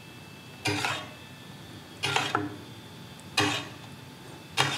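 Metal basting spoon scraping and clinking against a stainless steel sauté pan four times, about a second and a half apart, as reduced braising sauce is scooped up and spooned over lamb shanks.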